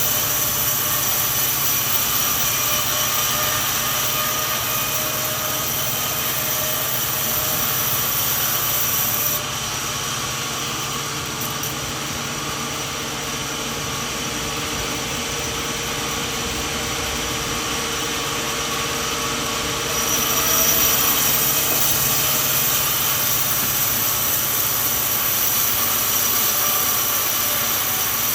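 Sawmill machine running steadily with engine and saw noise. The sound drops a little about a third of the way through and comes back up about two-thirds of the way through.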